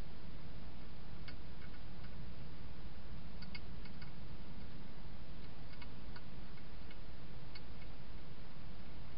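A wild hedgehog chewing dry food inside a plastic feeding station: faint, irregular crunching clicks, several in quick pairs, over the steady hiss of the trail camera's microphone.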